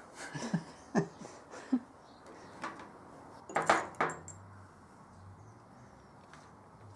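Light clicks and clattering of small hard objects being handled, with a cluster of louder knocks about three and a half seconds in, then a faint low hum.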